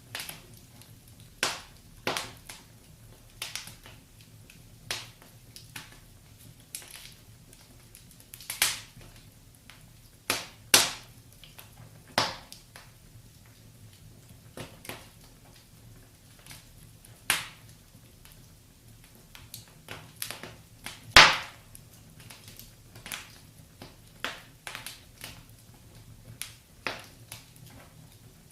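Wood fire crackling in a fireplace: irregular sharp pops and snaps, roughly one a second, over a faint steady hiss, the loudest pop about three-quarters of the way through.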